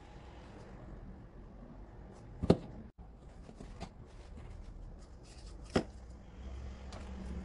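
Hands handling clear plastic packaging and a small LED cube light: soft rustling and small plastic clicks, with two sharp knocks, the louder about two and a half seconds in and another near six seconds in.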